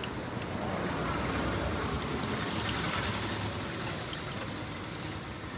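Batter-dipped raw banana slices (banana bajji) deep-frying in a wide wok of hot oil: a steady sizzle that swells about a second in and eases near the end.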